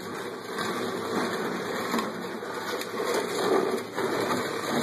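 Plastic toy doll cradle being pushed across a hard floor, its rockers scraping and rattling steadily, with an occasional knock.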